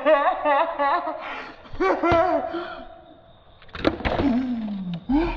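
A young girl laughing in quick repeated bursts, with a sharp knock about four seconds in.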